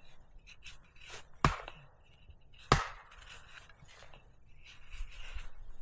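Firewood being chopped: two sharp strikes a little over a second apart, with a few lighter knocks around them.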